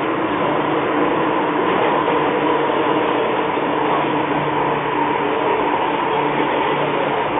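Inside a moving MTR Tsuen Wan Line M-train subway car: steady running noise of the train in the tunnel, with a constant hum of several tones over the rumble.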